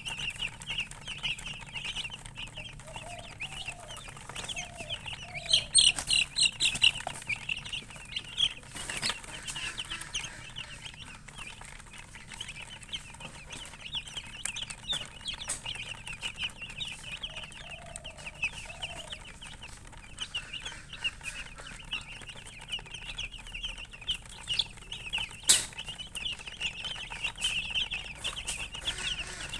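Chicks peeping constantly in a dense, high-pitched chorus, louder for a moment about six seconds in, with a hen clucking low a few times. Two sharp knocks cut through, the second near the end being the loudest sound.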